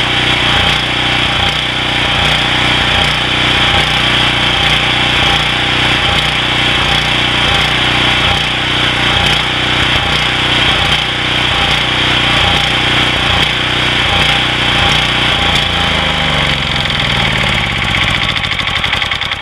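A PowerBack 5000-watt generator's 9 HP Briggs & Stratton Vanguard OHV single-cylinder engine runs steadily. About sixteen seconds in, its pitch starts to sag, and it winds down and dies near the end as it runs out of gas.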